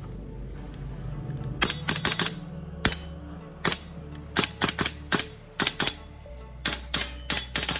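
Gas blowback airsoft rifle (VFC BCM MCMR) firing semi-automatic shots: a string of sharp cracks with the bolt cycling, starting a little under two seconds in, at irregular spacing, some in quick pairs and threes.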